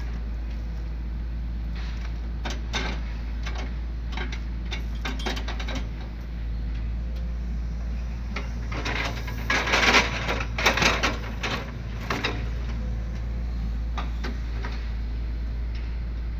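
Log-grapple excavator's diesel engine running with a steady low hum, under scattered knocks and clatters of the grapple handling logs, loudest in a burst of clattering about ten seconds in.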